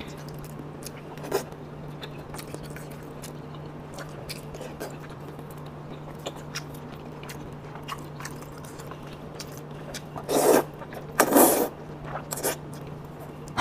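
Close mouth sounds of eating: soft chewing and lip smacks, then about ten seconds in two loud slurps of sweet potato noodles and a shorter one just after, over a steady low hum.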